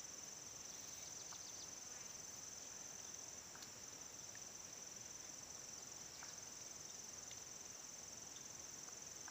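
Faint, steady high-pitched insect drone, crickets or cicadas singing continuously, with a few faint small ticks.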